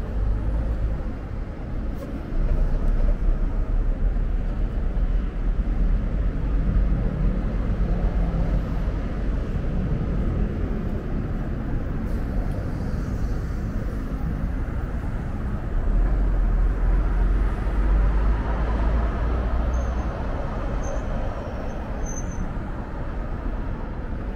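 City road traffic with heavy vehicles such as buses: a steady low engine rumble and tyre noise that swells as vehicles pass, about two seconds in and again near the end. A few short high chirps come just before the end.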